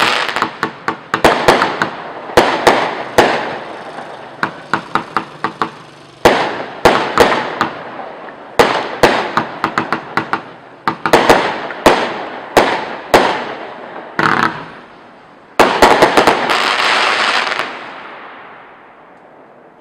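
Firework King Boombastic 90-shot cake firing: rapid volleys of sharp bangs in clusters, ending in a dense final barrage about three-quarters of the way in that then dies away.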